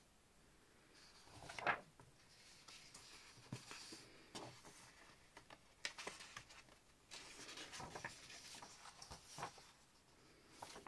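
Sheets of patterned scrapbooking paper being handled and turned over: soft paper rustles and slides, with a louder swish about one and a half seconds in.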